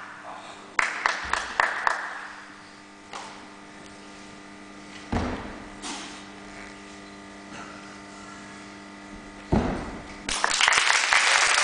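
Sharp knocks and a few heavy thuds from a nangun routine, the wooden staff striking and the feet stamping on the competition carpet, with a cluster of quick knocks about a second in. About ten seconds in, audience applause breaks out as the routine ends with a bow.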